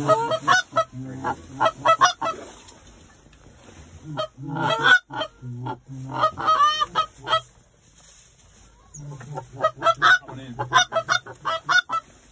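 Goose honking and clucking: rapid runs of short honks in several bursts, with a lull around eight seconds in.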